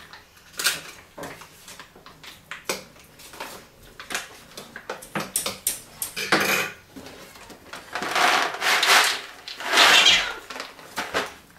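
Clattering handling noise: a string of light clicks and knocks, then two longer, louder rattling, scraping stretches in the second half.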